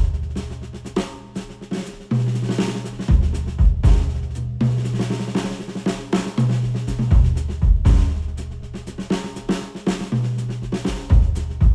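Instrumental music led by a drum kit, with a snare, strong kick-drum hits and a sustained bass line that changes note about every two seconds. It is played through HIFIMAN Edition XS headphones and picked up by microphones at the earcups.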